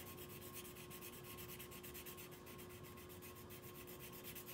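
Black felt-tip marker scratching on paper in quick, faint back-and-forth strokes as an area of the drawing is coloured in, over a steady low hum.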